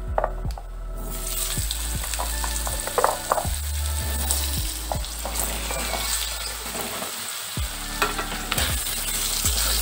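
Cubed potatoes dropped into hot mustard oil in a wok, starting a steady sizzle about a second in, with a few sharp clicks as pieces land in the pan.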